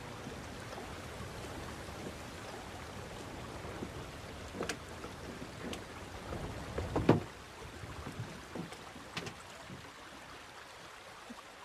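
Soft steady wash of river water around a wooden boat, with a few light knocks and clicks, the loudest about seven seconds in.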